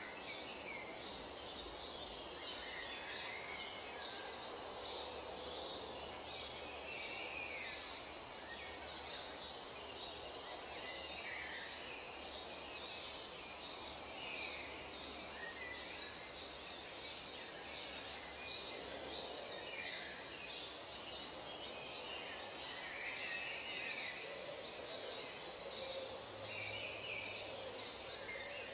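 Tropical forest ambience: short bird calls every few seconds over a steady background hiss, with quick high chirps throughout.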